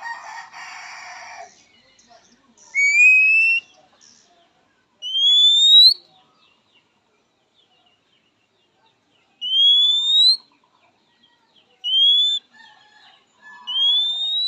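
Oriental magpie-robin (kacer) giving five rising whistled calls, each about a second long and a few seconds apart, the characteristic call used to challenge a rival. A short harsh rasp comes at the start.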